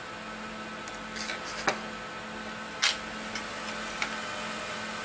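Light clicks and taps of small tools and parts as a laptop's wireless card is unscrewed and lifted off the motherboard: a handful of short, separate clicks, the sharpest near the middle, over a faint steady hum.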